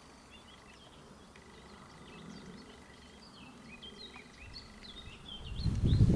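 Small birds chirping and singing in quick short notes, with a faint steady high tone underneath. Near the end a low rushing noise builds up and becomes the loudest sound.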